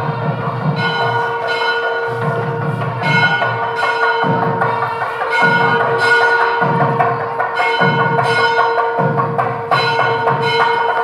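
Background music: a steady held drone with bells and percussion struck in a repeating rhythm, roughly once a second.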